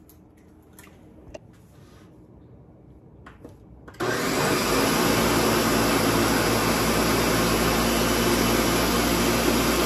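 Countertop blender switched on about four seconds in, running at a steady speed as it blends a jar full of raw eggs. A few faint clicks come before it starts.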